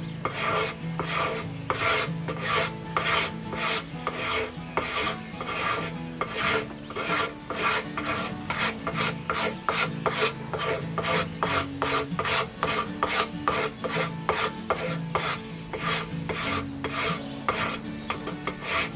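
Hand card scraper, bowed between the thumbs so its burr cuts, being pushed along a wooden cane shaft: repeated short scraping strokes, about two a second, each taking off fine shavings.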